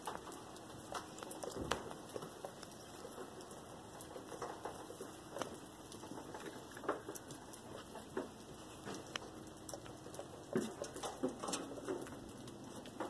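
A cat eating, crunching dry food: irregular small clicks and crunches.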